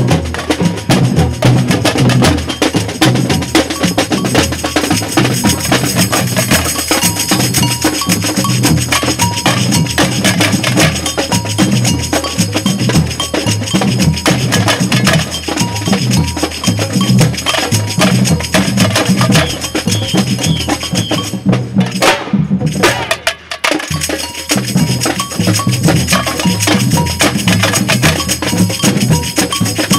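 Samba reggae drum band playing: surdo bass drums and hand percussion in a dense, driving rhythm. The playing briefly drops out about three-quarters of the way through, then comes back in.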